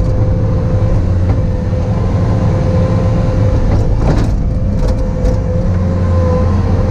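Bobcat T595 tracked skid steer's diesel engine running steadily, a low rumble under a held whine, with a brief knock about four seconds in.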